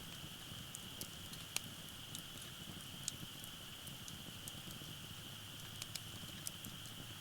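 Wood fire crackling in a Uniflame firewood-grill fire pit: scattered small pops and snaps, the sharpest about one and a half and three seconds in, over a steady high-pitched drone.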